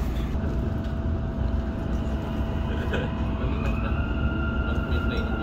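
Electric metro train pulling away after its doors close, heard from inside the carriage: a steady low rumble under the whine of the traction motors. A higher whine rises in pitch a little over three seconds in as the train gathers speed, then holds.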